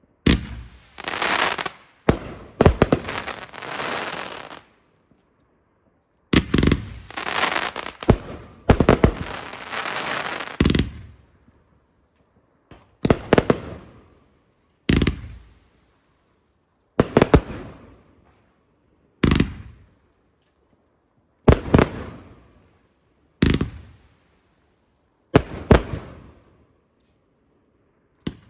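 Fireworks going off. Rapid volleys of sharp bangs with long crackling tails through the first eleven seconds or so, then single loud bangs about every two seconds.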